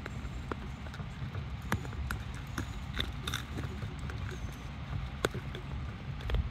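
Wet squelching and scattered small clicks from a hand working inside a plucked rooster's body cavity, loosening the internal organs for evisceration, over a low steady rumble.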